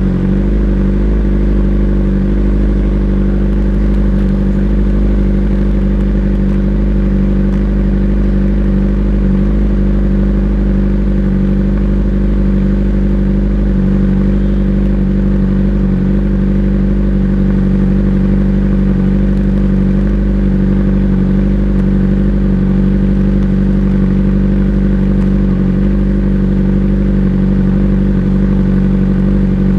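Motorcycle engine running at a steady, unchanging speed, with an even drone.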